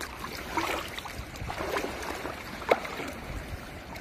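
Shallow seawater splashing and sloshing as a rope line of crab traps is worked through it, in irregular small splashes, with one sharp knock about two-thirds of the way through.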